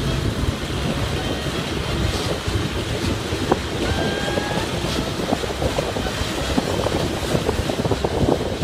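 Diesel passenger train running along the track, heard from an open window: a steady rumble with wind on the microphone, and quick clicks and knocks of the wheels on the rails, busier in the second half.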